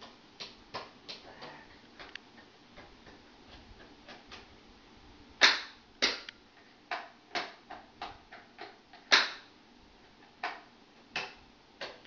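Wall toggle switches on a test wiring board being flipped on and off: a quick, irregular series of sharp clicks, with two louder snaps about five and nine seconds in.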